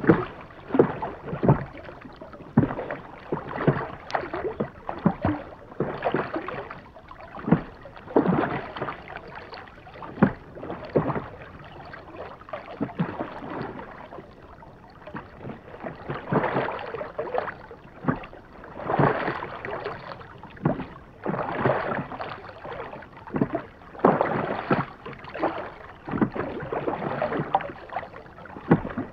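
Rowboat being rowed: oars dipping and pulling through the water in a stroke about every two to three seconds, with short sharp knocks among the splashes and a quieter spell near the middle.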